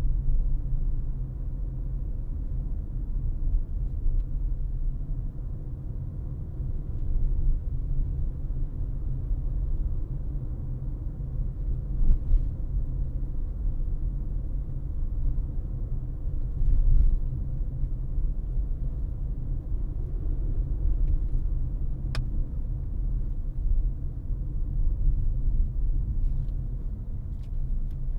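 A car driving along: a steady low rumble of road and engine noise, with a single sharp click about three-quarters of the way through.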